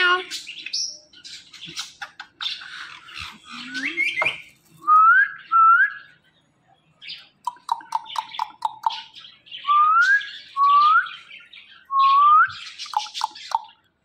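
Indian ringneck parrots squawking and chattering, then giving several short rising whistled calls and, about halfway through, a quick run of about six clipped notes.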